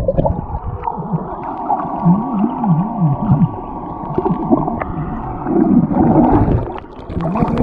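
Muffled underwater sound from a camera microphone held below the sea surface: water noise with swimmers' voices from nearby coming through dull and wavering.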